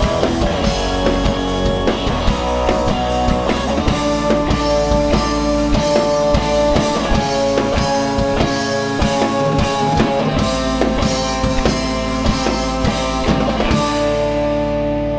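Rock band playing an instrumental passage: drum kit keeping a steady beat under electric guitar and bass. About fourteen seconds in the drums stop and a held chord rings on.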